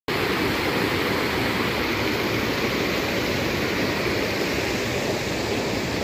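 Steady rushing of a swollen river pouring over rocks in small rapids and falls.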